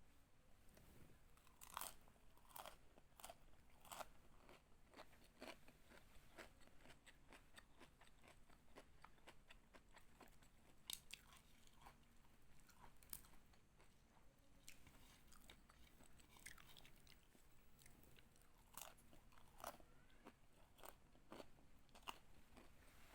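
Faint crisp crunching and chewing of fried mustofa, the crispy shredded-potato snack, in many short separate crunches; its crunchiness shows the snack came out crisp.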